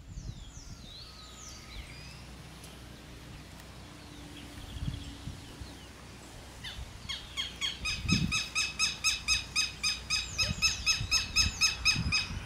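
Wild birds calling outdoors: a few descending whistled calls at first, then from about seven seconds in a loud, fast series of harsh repeated notes, about five a second, that runs to the end.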